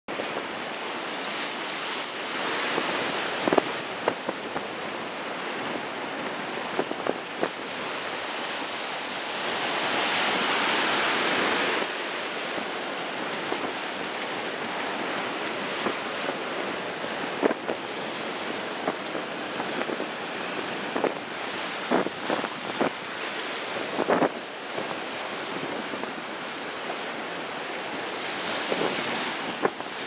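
Rough sea surf washing over and splashing against the sides of a concrete pier, with strong wind buffeting the microphone. The wash swells louder a few times, most of all around ten seconds in, with scattered short sharp splashes.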